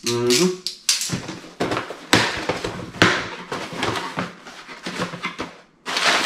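A cardboard shipping box being opened by hand: a short squeak right at the start, then a run of scratchy tearing and rustling strokes as the packing tape and cardboard flaps are pulled apart.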